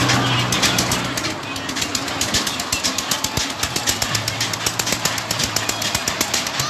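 Fairground ride's cars running along an elevated metal track, with a rapid, even clatter over a low steady hum.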